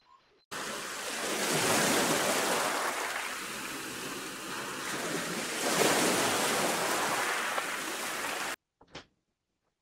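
Steady rush of wind and sea water at the waterfront, swelling twice, then cut off abruptly near the end.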